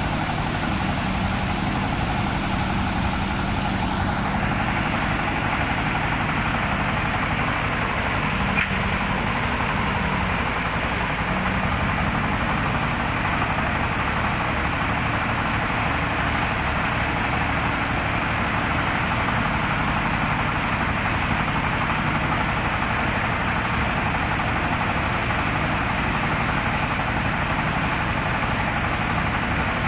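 Engine-driven rice threshing machine running steadily, its engine and threshing works making a continuous mechanical din.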